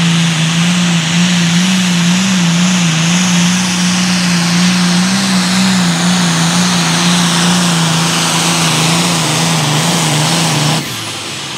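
John Deere 4455 limited pro stock pulling tractor's turbocharged diesel engine running flat out under load while it drags the sled. A steady, high engine note wavers slightly in pitch under a loud hiss, and the sound drops abruptly near the end.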